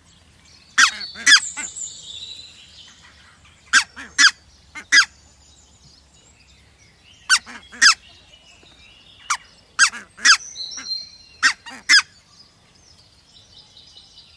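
Red-breasted geese giving short, sharp, shrill calls, about a dozen in all, in quick pairs and threes with pauses between the clusters.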